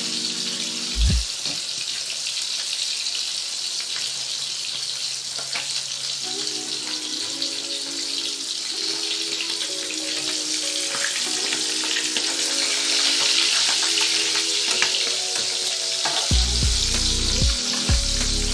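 Bilong-bilong fish frying in hot oil in an aluminium wok: a steady sizzle with scattered crackling pops of spattering oil. A single dull thump comes about a second in.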